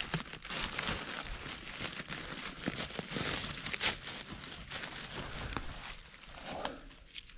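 Dry forest leaf litter and undergrowth rustling and crackling, with many small sharp cracks, as mushrooms are picked from it.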